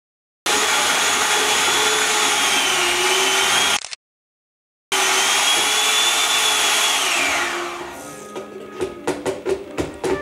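Electric hand mixer running with a steady high whine that wavers slightly as it beats batter in a plastic bowl, cut to total silence twice for about a second, then winding down about seven seconds in. Music with short plucked notes starts near the end.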